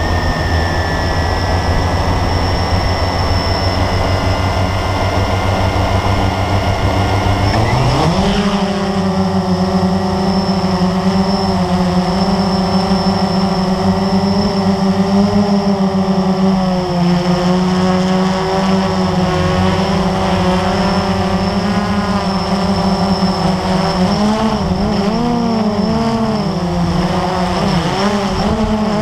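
Drone's motors and propellers heard close up from the camera hanging beneath it: running at a low speed, then spooling up sharply about eight seconds in as it lifts off and holding a loud, steady whine. The pitch wavers up and down near the end as it manoeuvres.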